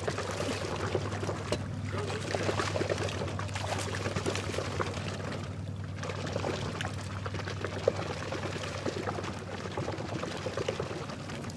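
Water pouring and splashing steadily, over a low, steady motor hum.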